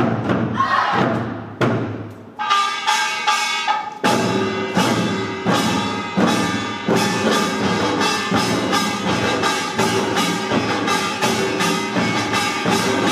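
Korean pungmul percussion ensemble playing pangut: a few separate heavy drum strokes, then about two seconds in ringing gong tones come in, and from about four seconds in the group plays a fast, steady beat of gongs and drums.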